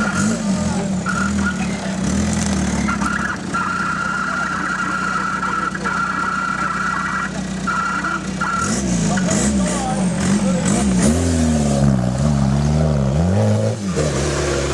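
Off-road competition buggy's engine idling steadily, then revved hard up and down again and again from about nine seconds in as it powers up a steep dirt bank.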